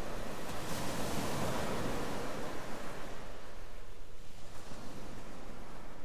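A steady wash of noise like surf or wind, with no notes or beat, thinning out over the last few seconds: a noise effect closing a track on a vinyl LP, just before the next track's music.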